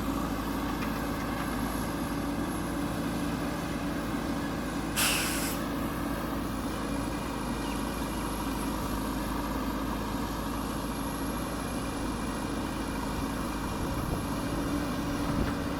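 JCB backhoe loader's diesel engine running steadily, with one short sharp hiss about five seconds in.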